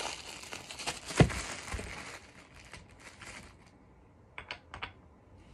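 Plastic packaging crinkling as it is handled around a cast dumbbell, with a single sharp knock about a second in. After about two seconds it goes quiet apart from a couple of light clicks near the end.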